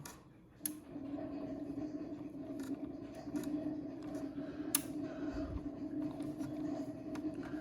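Steady low hum with scattered small clicks and taps from plastic parts and a hand screwdriver being handled while a refrigerator crisper drawer roller wheel is screwed back on. The hum drops out for a moment right at the start.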